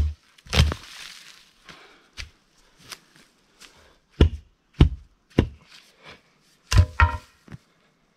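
Pickaxe striking ground full of rocks and roots while digging a trench: a series of about nine sharp, irregularly spaced chopping blows, the last two near the end ringing briefly.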